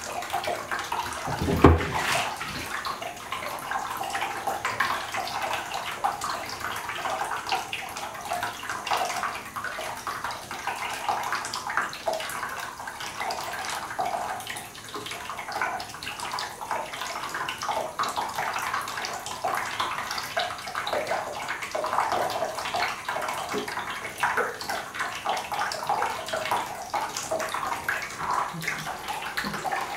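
Thin stream of tap water running from a bathtub spout and splattering into the nearly empty tub, steady throughout. A single thump about two seconds in.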